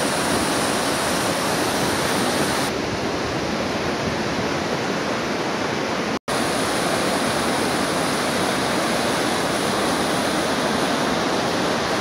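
Waterfall cascading over boulders: a steady, dense rush of falling water. The sound cuts out for an instant about six seconds in.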